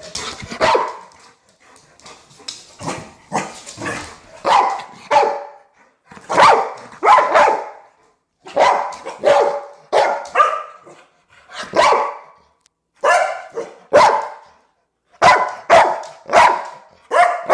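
Dog barking over and over, short loud barks coming singly and in quick pairs about once a second, with brief pauses between runs.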